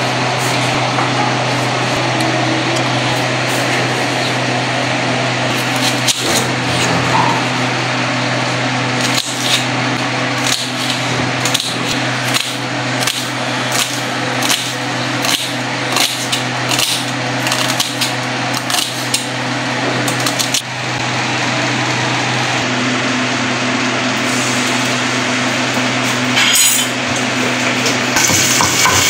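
Kitchen knife slicing a red onion on a board: a run of sharp knocks, about two a second, for roughly ten seconds through the middle, over a steady low hum.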